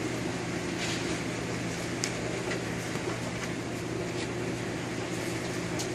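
A steady machine hum, with a few faint, brief swishes and taps as a towel wipes a car battery dry.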